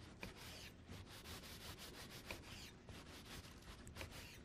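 Faint, quick, irregular strokes of a knife cutting beef into pieces on a cutting board.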